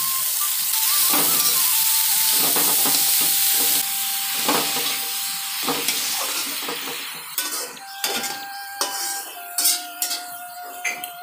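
Shredded cabbage sizzling in hot mustard oil in a metal kadai while a metal spatula stirs and tosses it. The loud sizzle dies down after about four seconds. From around seven seconds in, the spatula's scrapes and clinks against the pan stand out.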